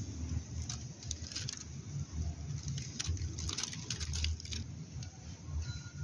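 Outdoor rustling and crackling in two bursts, one about a second in and a longer one from about three to four and a half seconds in, over a steady low rumble.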